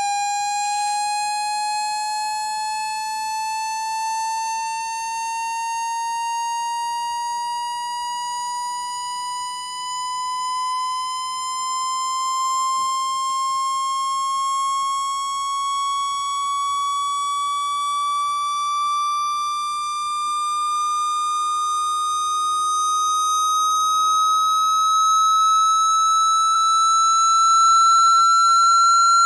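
Speaker-cleaning tone for driving water or dust out of a phone speaker: one continuous electronic tone with a buzzy edge, gliding slowly and steadily upward in pitch and getting a little louder near the end.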